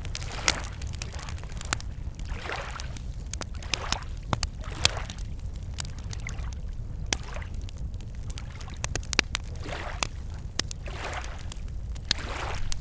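Campfire wood crackling with many sharp pops, over small lake waves lapping against the shore in swells every second or two, with a steady low rumble underneath.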